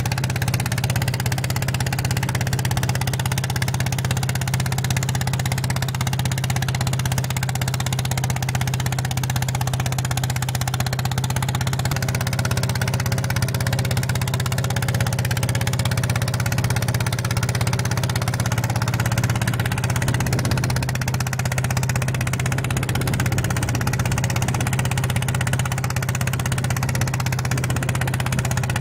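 Ride-on mini tractor's engine running steadily under load as it pulls a disc plough through a field, a constant low engine hum with no change in speed.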